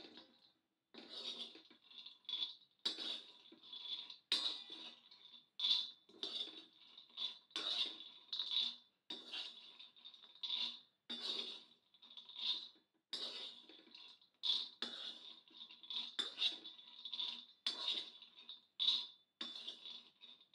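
Steel spoon stirring and scraping peanuts across a flat black griddle as they dry-roast, a rattle of nuts and a light metallic scrape. The strokes come about once a second, with a faint ring to each.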